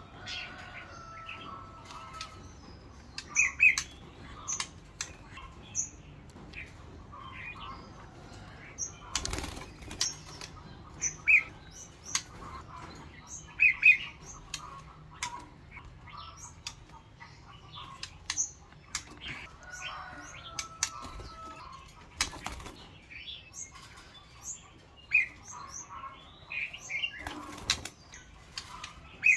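White-rumped shama moving about its cage: wing flutters and scattered sharp knocks on the perch and bars. Short high chirps and a few brief whistled notes sound among them.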